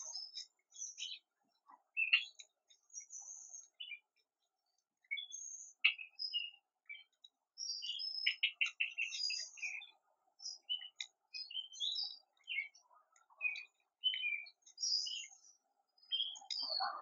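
Outdoor birdsong: many short high chirps and calls from several birds in quick succession, with a brief rattling trill about eight seconds in. A dull rustling thump comes right at the end.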